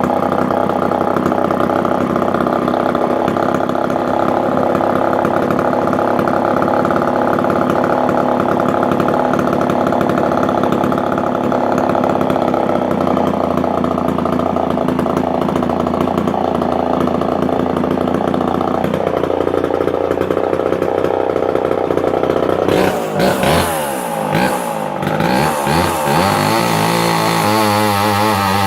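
Homelite Super XL Automatic two-stroke chainsaw engine running steadily, then revving up and down with sweeping pitch a little over 20 seconds in, and near the end its pitch wavers as it starts into a cut.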